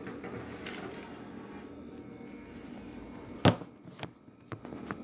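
A sharp knock about three and a half seconds in, then a few lighter clicks, over a steady low hum.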